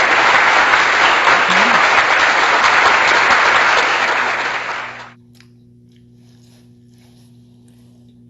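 Applause sound effect, a dense steady wash of clapping that cuts off abruptly about five seconds in. After it only a faint steady hum and a few light clicks remain.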